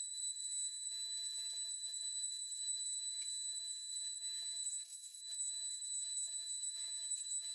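CNC router spindle running with a steady high-pitched whine while engraving plywood with a V-bit. A lower hum comes and goes underneath in short pulses, about three a second, as the machine moves.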